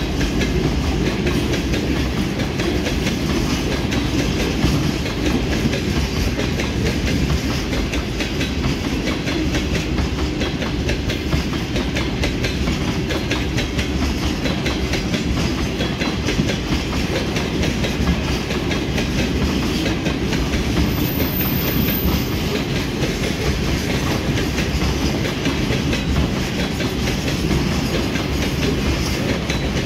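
Freight train of railway tank cars rolling past at speed, the wheels running steadily over the rails without a break.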